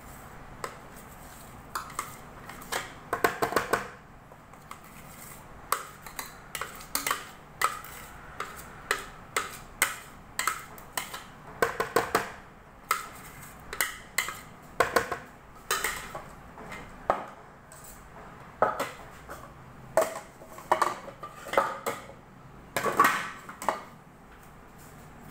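A utensil scraping and knocking against the clear bowl of an electric food chopper as ground chana dal is emptied out into a tub: a run of irregular sharp clicks and short scrapes.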